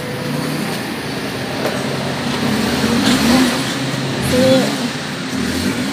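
Street traffic noise with a motor vehicle engine running steadily, swelling a little about three to four seconds in.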